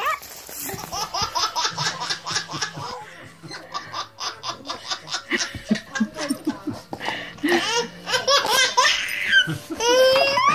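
Baby laughing hard: a long run of belly laughs in quick repeated bursts.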